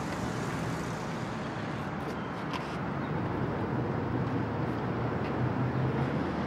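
Steady low rumble of urban background noise from traffic, growing slightly louder, with a few faint clicks about two seconds in.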